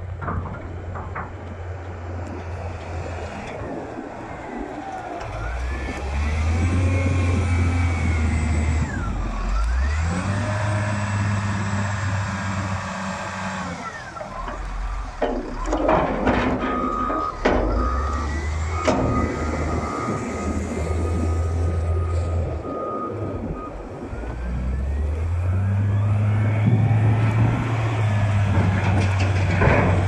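Cat 950H wheel loader's diesel engine working hard, revving up and easing off several times as the machine pushes and lifts snow, with a few knocks near the middle as the bucket is raised and dumped.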